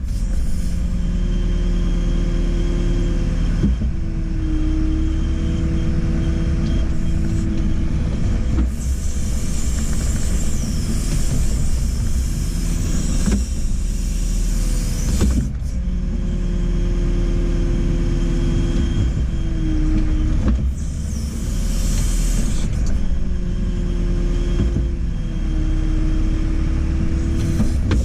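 JCB 4CX backhoe loader's diesel engine running under load as the hydraulics work the backhoe, with a pitched whine that comes and goes in repeated cycles of a few seconds. Twice, about a third and three quarters of the way through, a brighter hiss rises over it.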